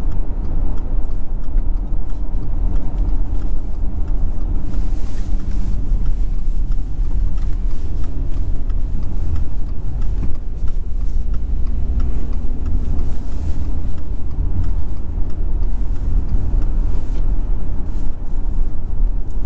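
Steady low rumble of engine and road noise heard from inside a moving car's cabin while the car tows a caravan.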